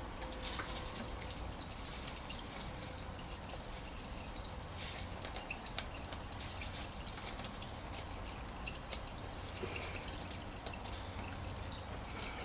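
Engine oil dripping from the Honda Civic's open sump drain hole into a drain pan: scattered drops over a steady faint trickle.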